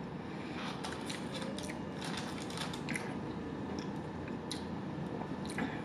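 Close-miked eating sounds: irregular small clicks and crackles from chewing and handling food at the table.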